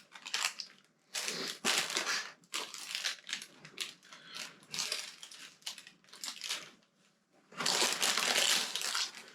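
Plastic bags of spare Lego parts crinkling as hands rummage through them, in irregular bursts with a longer stretch near the end.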